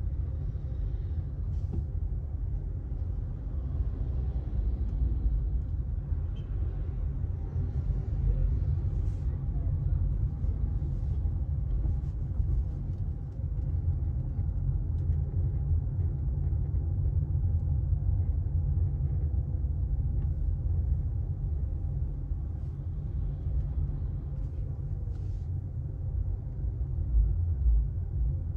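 Steady low rumble of a moving road vehicle, with faint steady tones above it and a few light clicks.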